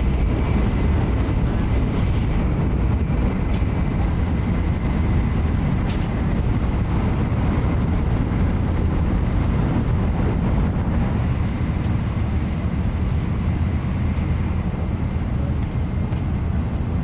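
Cabin noise of a Nozomi Shinkansen bullet train running at speed: a steady low rumble with a faint high tone and a few faint clicks.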